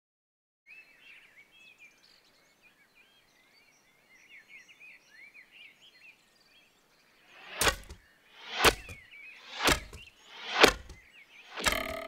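Birds chirping faintly, then five arrows whooshing in and thudding into an archery target, about one a second.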